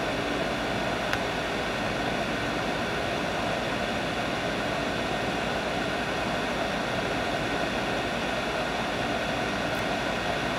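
Hot air rework station blowing a steady stream of hot air onto a surface-mount chip to melt its solder for removal, with a faint tick about a second in.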